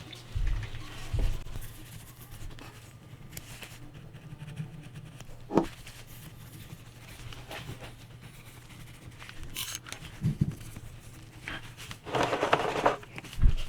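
Cleaning a 1911 pistol frame by hand: scattered knocks and clicks of the metal frame being handled and set down, with a short burst of nylon-brush scrubbing near the end, over a low steady hum.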